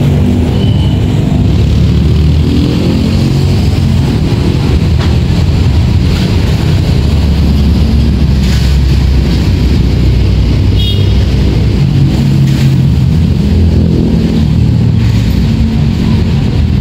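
Pressure washer's 459 cc SUA 460 engine running steadily under load, with a hiss of water spray over its drone.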